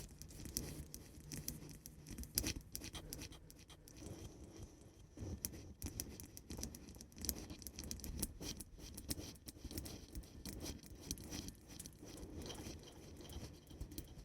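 Scratching and tapping on a cork pad and wooden block: a dense, uneven run of quick faint taps and scrapes, several each second.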